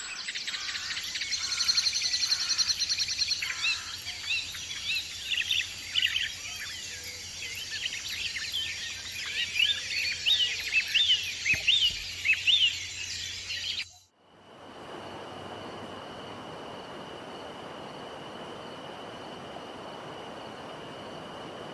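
Several birds chirping and calling over one another, with quick rising and falling notes. About two thirds of the way through the calls cut off suddenly, leaving a steady hiss with a faint high, constant tone.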